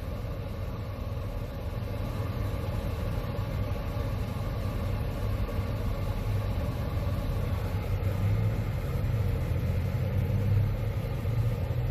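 Steady low rumble inside a car's cabin as it sits idling at a red light, with traffic passing through the intersection.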